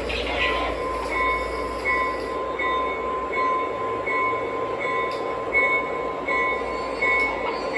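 O gauge model trains running on Fastrack three-rail track, a steady rolling rumble. About a second in, a short ringing tone starts repeating about every three quarters of a second over a steady higher hum.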